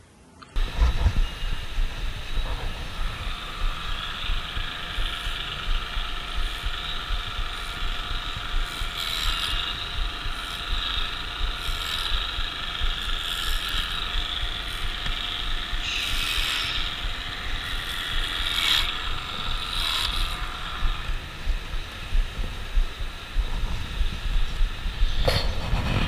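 Electric livestock clippers running steadily while shearing a cow's hair, a motor whine whose pitch dips briefly a few times as the blades cut. It starts abruptly about half a second in.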